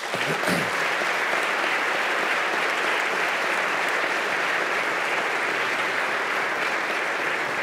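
A large audience of legislators applauding in a big hall, the clapping starting at once and holding steady.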